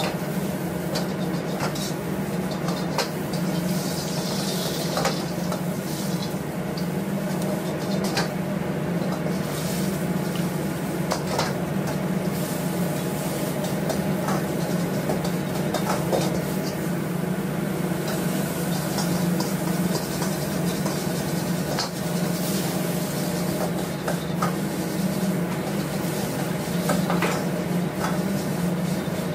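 Metal ladle scraping and clanking against carbon-steel woks, in scattered sharp knocks every second or two, over a steady low hum from the wok station, with the station's tap running water. A brief sizzle about four seconds in.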